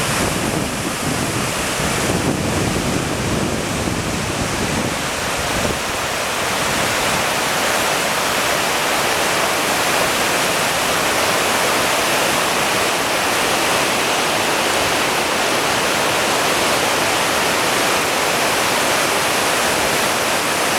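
Fast mountain river full of spring snowmelt, rushing with a steady, loud noise. There is an extra uneven low rumble in the first six seconds or so.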